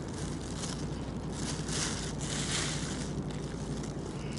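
Wind buffeting the microphone, swelling in gusts around the middle, over a steady low hum.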